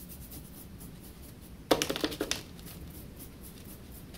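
A quick run of five or six light clicks and taps, a little under halfway through, from the paintbrush and the plastic cap of an acrylic paint bottle as full-strength orange paint is picked up from the cap.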